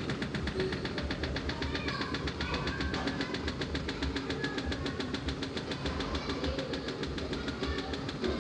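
Top-loading washing machine running its high-speed spin with the lid open: the drum and motor make a steady mechanical whir with a fast, even pulsing.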